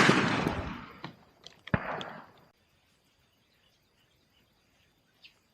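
The echo of a shotgun blast fired a moment before rolls away over the first second, then a second, lighter sharp crack comes about 1.75 s in with a short echo. After that only faint bird chirps and a steady high-pitched insect-like tone remain.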